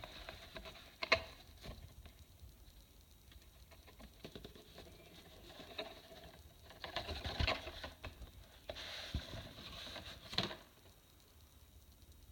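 Plastic LEGO Technic model being handled: scattered sharp clicks and knocks, with two stretches of dense crackly rustling in the second half.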